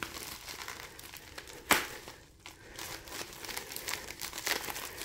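Packing paper crinkling and tearing as it is slit with a folding knife and pulled away, with one sharp click a little before halfway and a run of small crackles near the end.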